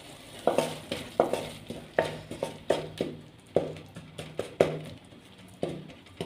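Wooden spatula stirring and scraping tomato-spice masala against an aluminium karahi, about two to three strokes a second, starting about half a second in.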